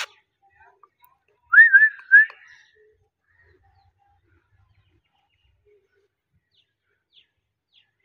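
Alexandrine parakeet giving one short wavering whistle, rising then wobbling in pitch, about one and a half seconds in. A sharp click comes at the very start.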